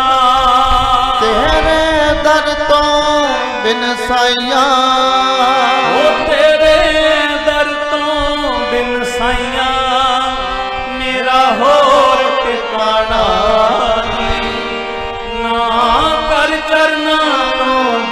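Devotional Punjabi song music: a gliding, ornamented melody over a drum beat.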